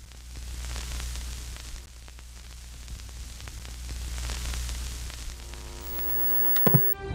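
Television static: a steady hiss over a low hum, swelling and fading twice, with a few sharp clicks near the end.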